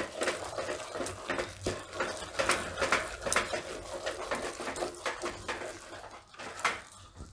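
Wooden stirrer scraping and knocking through thick cooked rice-and-lentil flour dough in an aluminium pot, in irregular strokes. The stirring dies down near the end, with one last louder knock.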